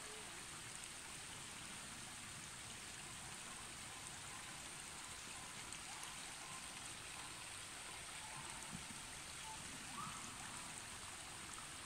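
Faint steady outdoor background hiss with a thin, constant high tone above it, and a few faint brief sounds scattered through it.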